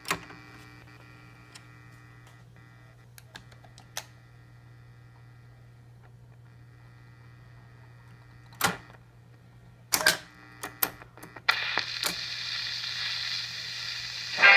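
1950 Ristaucrat Dial-O-Matic 45 rpm record changer cycling to the next record: a steady low hum with scattered mechanical clicks, then a cluster of clunks about ten seconds in as the next 45 drops onto the turntable. From about eleven and a half seconds the stylus hiss of the record's lead-in groove comes up.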